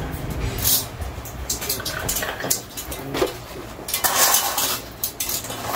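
Metal rails and fittings of a duo roller blind clinking and rattling as they are handled, an irregular run of clicks and knocks with a denser clatter about four seconds in.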